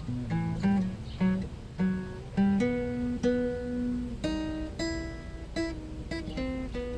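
Instrumental break of a song: acoustic guitar played in short notes and strums with a steady bass, no singing.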